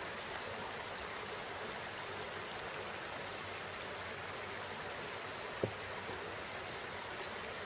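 Small shallow woodland stream running over rocks, a steady babbling hiss. A single brief knock about two-thirds of the way through.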